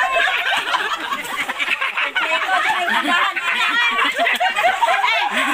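A group of women laughing together, several voices overlapping in giggles and chatter.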